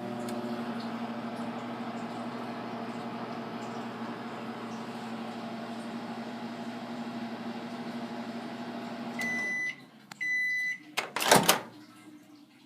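Microwave oven running a timed 10-second cycle with a steady hum, stopping about nine seconds in. Two short end-of-cycle beeps follow about a second apart, then a loud clack as the door is opened.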